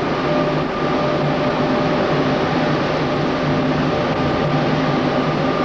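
Steady machinery hum with several constant tones over an even rushing noise, unchanging throughout.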